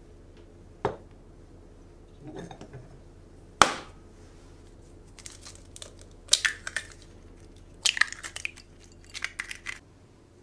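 Eggs being cracked over a glass mixing bowl: a light click, then a single sharp knock of eggshell, the loudest sound, a little over a third of the way in. After it come several bursts of short crackles as the shells are broken open.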